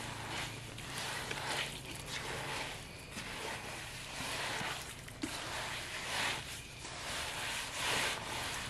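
A bare hand scraping and turning gritty dry earth as it is mixed with water into mud: rough, irregular swishes about once a second.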